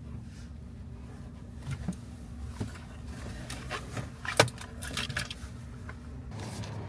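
Steady low rumble of a vehicle, with a few light clicks and rattles and one sharp click about four and a half seconds in.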